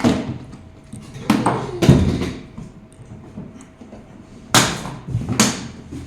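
About five sharp knocks and thuds, the loudest about two seconds in, as plastic parts of a children's ride-on toy car are fitted into place.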